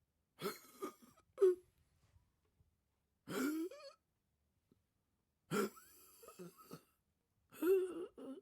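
An old man's startled vocal reactions: about five short gasping, yelping outbursts, each a separate take with silence between, the pitch of several bending up sharply.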